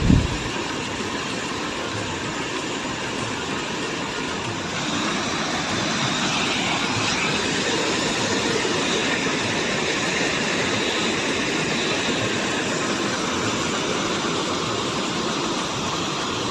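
Steady rushing of flowing water, a continuous full noise with no distinct tones, growing a little louder about four seconds in. A brief low bump at the very start.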